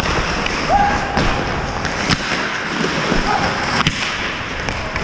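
Ice hockey game sounds close to the goal: skates scraping across the ice, with several sharp knocks from sticks, puck and boards.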